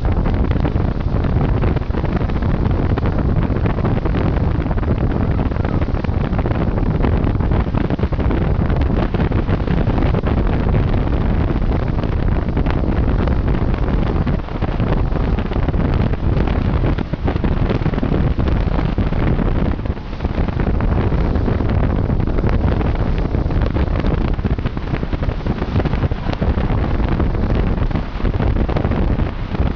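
Wind buffeting the microphone aboard a harbour ferry under way, over the boat's steady low rumble.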